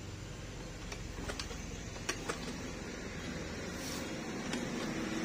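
A few short sharp clicks over a steady low background hum, from a test wire and plastic coupler being handled at a scooter's magneto wiring.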